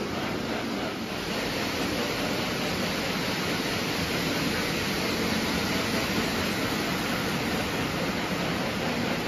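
Postwar Lionel O gauge trains rolling on tubular three-rail track: a steady, even rumbling whir of wheels and motors.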